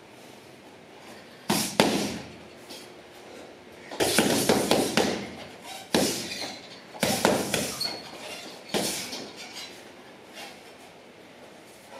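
Strikes landing on a hanging heavy bag. There is a single hit about a second and a half in, then a fast flurry of hits a few seconds later, followed by several shorter runs of hits with quieter gaps between them.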